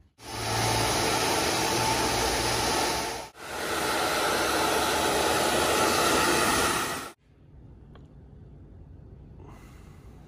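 Hand-held hair dryer blowing on wet hair with a steady rushing noise. It cuts out for a moment about three seconds in, runs again, then stops about seven seconds in.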